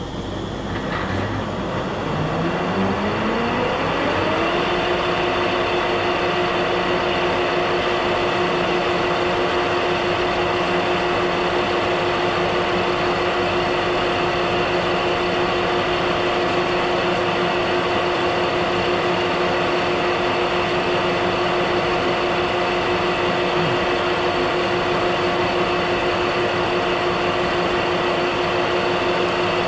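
Metal lathe spinning up: its gear whine rises in pitch over about two seconds, then holds steady as the machine runs at speed.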